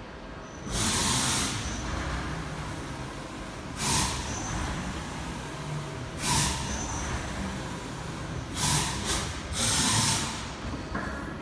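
About six hissing blasts of compressed air at irregular intervals, the first and last lasting about a second and the others short, over a steady low hum of machinery.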